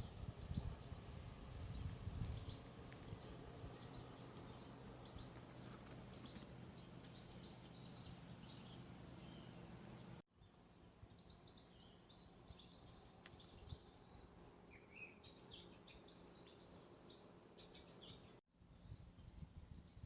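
Faint birds chirping over quiet outdoor background noise. The sound cuts out abruptly twice, about ten seconds in and near the end.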